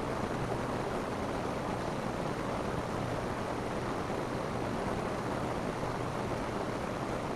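Steady rain falling on a roof, an even, unbroken patter.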